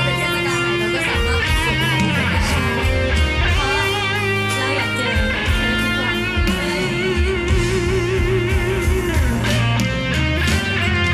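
Live band music, an instrumental passage led by electric guitar over a steady drum beat, some notes held with a wavering pitch; no singing.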